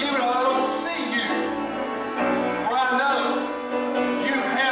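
Worship music playing: a singer with sustained instrumental backing, slow and steady.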